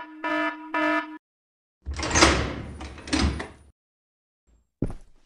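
Animation sound effects: three short buzzer beeps, then an automatic sliding door opening with a whoosh about two seconds in, then footsteps on a hard floor begin near the end.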